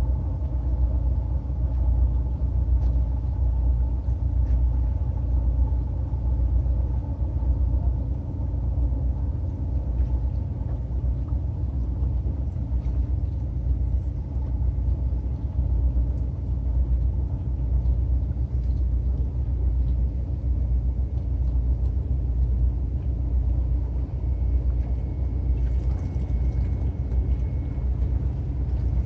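A steady low outdoor rumble that flickers in level, with a few faint clicks and a faint thin high tone in the last few seconds.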